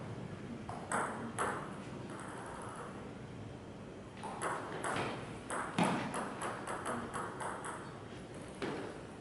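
Table tennis ball clicking off paddles and the JOOLA table: two clicks about a second in, then a fast rally of hits and bounces from about four seconds to nearly eight seconds, and one last click near the end.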